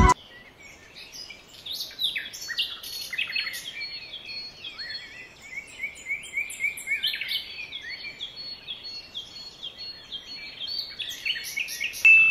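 Birdsong ambience: many small birds chirping and twittering at once, quick rising and falling calls that thicken about two seconds in. Near the end a short, loud, clear tone sounds.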